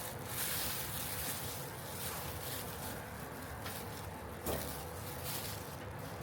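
Razor blade slicing through masking material along a taped edge, with the scratchy rustle of the material as it is cut and handled. A single sharp click comes about four and a half seconds in.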